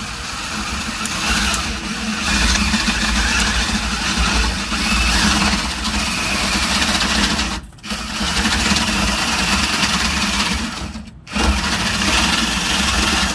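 Cordless drill boring a 7/8 inch spade bit into the wooden edge of a door slab through a 1/4 inch pilot hole, running steadily with two brief stops as the trigger is let off.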